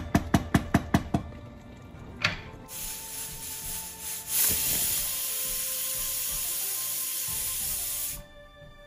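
Wooden spoon stirring curry in an aluminium pressure cooker, knocking against the pot at about four strokes a second for the first second. From about three seconds in, steam hisses loudly and steadily from the pressure cooker's weighted valve, then stops suddenly near the end.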